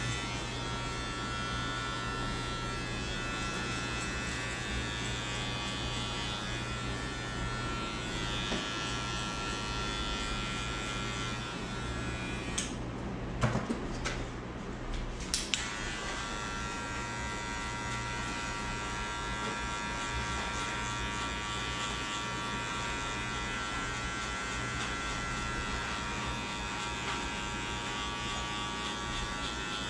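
Electric hair clippers buzzing steadily while cutting a fade. About halfway through the buzz thins out for a few seconds, with a couple of sharp clicks, then comes back.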